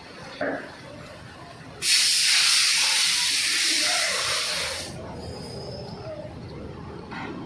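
A loud, steady hiss lasting about three seconds, starting about two seconds in, with a short knock just before it.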